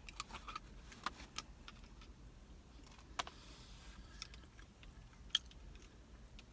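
Light scattered clicks and rustles of a plastic takeout soup container being handled and opened, with a few sharper clicks among them.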